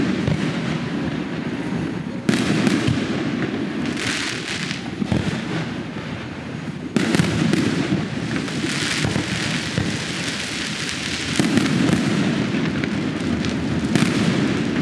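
Fireworks display going off in a dense, continuous barrage of bangs and crackling, with sudden louder volleys about two seconds in and again about seven seconds in.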